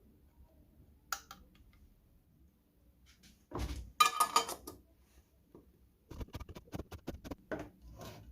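Hard objects being handled: a sharp click, then a loud clatter, then a quick run of knocks and taps.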